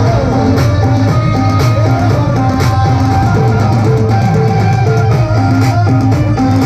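Live qawwali music: a melody in held, stepped notes over steady dholak drumming.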